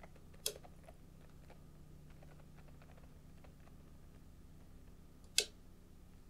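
Low room hum with two sharp clicks about five seconds apart, the second the louder, and a few faint ticks between them.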